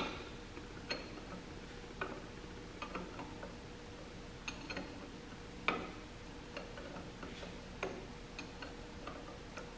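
Light, irregular clicks of an open-end wrench on a brass fuel fitting as it is turned and repositioned, tightening the fitting into the carburetor. There is roughly one faint click a second, with the loudest about six seconds in.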